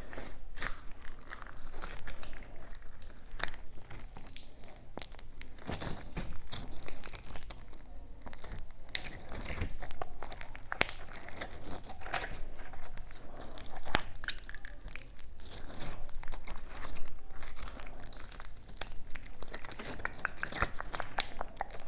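Plastic packaging crinkling and tearing as it is handled and opened, a dense run of small irregular crackles and clicks.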